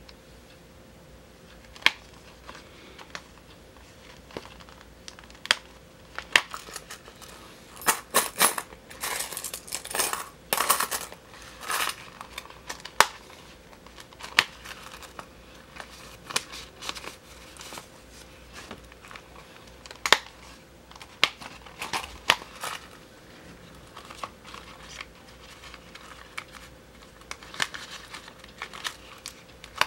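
Metal snap buttons on a cowhide leather mini wallet clicking as they are pressed and pulled open, one sharp click at a time, among the rustle of stiff leather flaps being handled, busiest a third of the way in.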